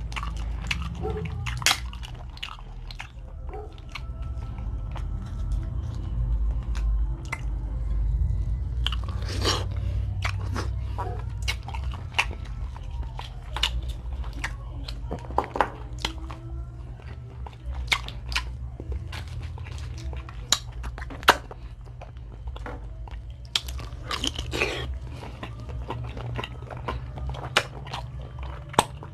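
Dungeness crab being eaten up close: a run of sharp cracks and crunches as the shell is broken and bitten, with chewing between them. A steady low hum runs underneath.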